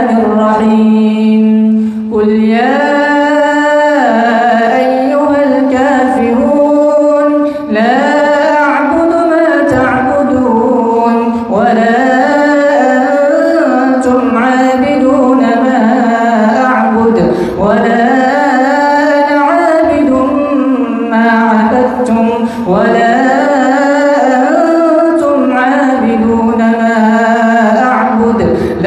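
A man's solo Quran recitation in slow, melodic tajweed chant, amplified through a microphone: long drawn-out phrases whose pitch bends up and down, broken only by short breaths.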